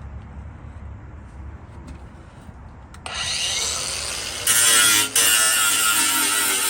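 Angle grinder with a cut-off wheel cutting through a steel bracket on a 1972 Chevy Nova body. It starts about three seconds in and then runs continuously with a whine, loudest for a moment about halfway through, with a brief dip just after.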